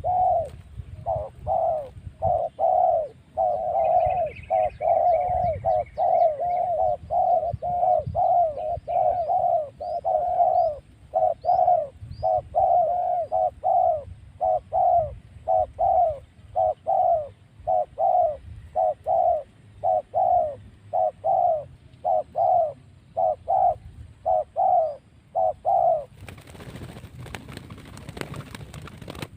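A dove cooing in a long run of short, crisp repeated notes, a little more than one a second, from the bird kept for its 'kuk 1' voice; it stops near the end, followed by a few seconds of rustling. Faint high chirps of another small bird are heard in the first half.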